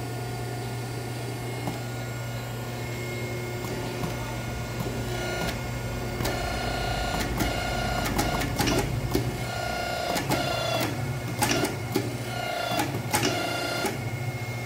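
Hydraulic hose crimping machine running: a steady motor hum throughout, with sharp metallic clicks and clanks starting about five seconds in and coming thick and fast in the second half.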